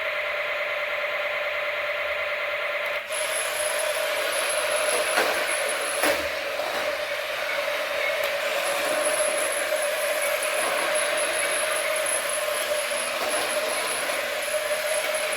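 A small electric motor running steadily with a whirring hum, turning harsher about three seconds in, with two sharp clicks about five and six seconds in.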